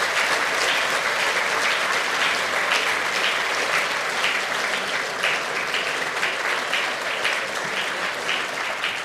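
Audience applauding, a dense clatter of many hands clapping that slowly eases off toward the end.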